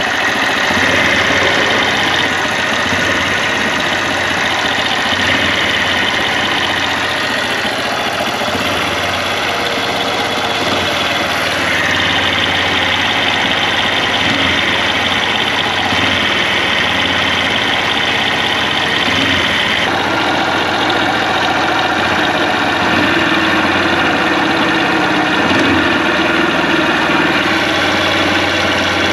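Honda Cub's small single-cylinder four-stroke engine idling steadily, with an abnormal mechanical noise from underneath that the owner hears from the right rear. The character of the sound shifts about 12 seconds in and again about 20 seconds in.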